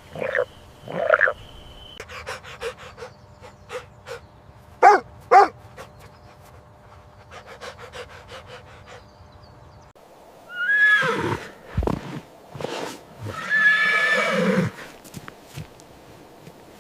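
Horse whinnying twice in the second half, the first call falling in pitch and the second a longer, steadier one, after a run of short clicks and brief animal calls.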